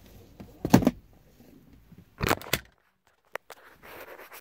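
Handling noise from the recording phone being picked up: a few sharp knocks and clicks with rustling between them.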